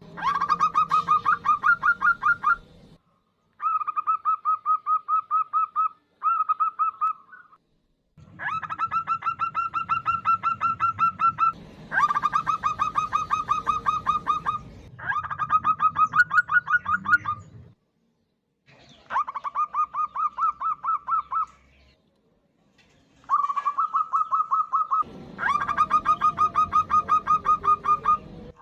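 Female zebra dove (perkutut) calling to draw a male: rapid runs of short, even, repeated notes in bouts of two to four seconds, separated by brief pauses, about eight bouts in all.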